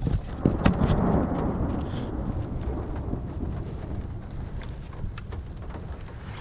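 Thunder rolling from a thunderstorm, loudest about a second in and slowly fading away, over steady rain and wind hiss. A few sharp knocks near the start as the camera is handled.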